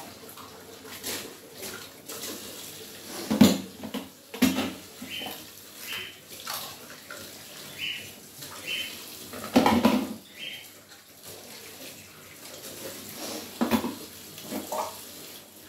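Water running from a tap into a kitchen sink while steel and plastic dishes are scrubbed and rinsed, with utensils knocking and clinking against each other now and then; the loudest clatters come about three and a half and ten seconds in.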